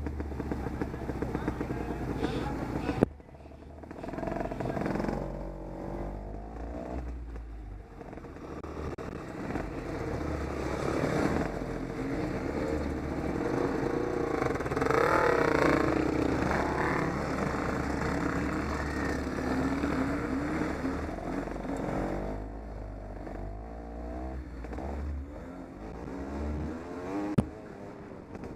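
Off-road motorcycle engines running and revving, the pitch rising and falling repeatedly, loudest around the middle.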